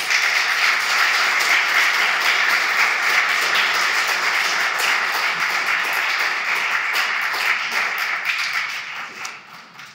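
Audience applauding: dense, steady clapping that tapers off and dies away near the end.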